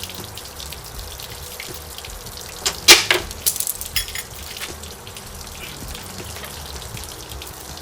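Sharp, irregular metal clicks and clinks of hand tools and small engine parts while unbolting ignition coil packs on an outboard motor, bunched together about three seconds in and loudest at the first strike, over a steady hiss.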